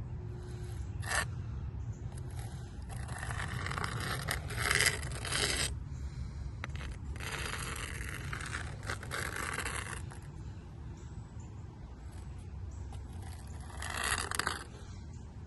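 A caulk spreader scraping along a fresh bead of caulk, tooling it smooth in several strokes, over a steady low rumble.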